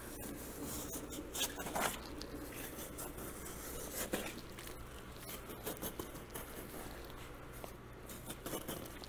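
Knife slicing through the membrane between a bison hide and the carcass, with soft scraping and rustling as the heavy hide is peeled back, and a few sharper scrapes.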